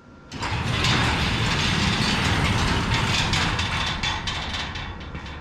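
Electric welding arc crackling and sizzling steadily as a bead is laid on a steel door latch striker plate, starting about a third of a second in and easing off near the end.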